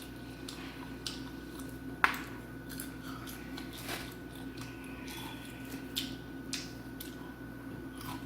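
Popeyes fried chicken being picked apart with the fingers and eaten close to the microphone: scattered small crackles and clicks with one sharp click about two seconds in, over a steady low hum.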